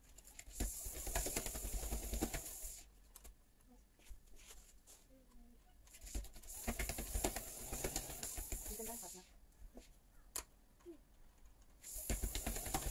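Manual (non-motorised) walking treadmill's belt rolling and clattering under a toddler's steps, in three bouts of two to three seconds each.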